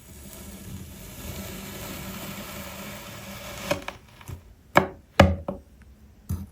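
Layered kinetic sand being cut: a soft steady rustle, then from about three and a half seconds in, a run of about six sharp crisp chops, the loudest two near the middle of the run.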